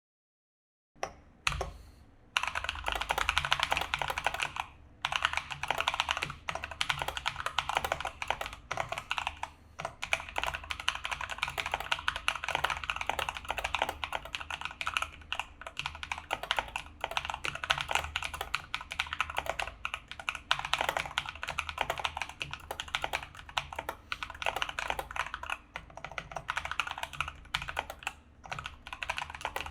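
Mechanical keyboard fitted with lubed Feker Holy Panda tactile switches being typed on: a dense, continuous run of keystrokes with brief pauses, starting about a second in.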